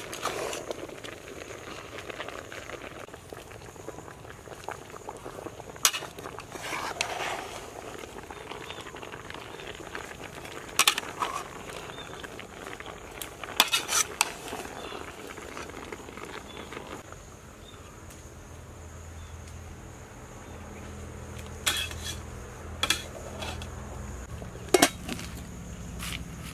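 Metal ladle clanking and scraping against an aluminium cooking pot as shredded coconut and bananas are stirred, with a handful of sharp clanks spread through. A last clank near the end as the metal lid goes on the pot.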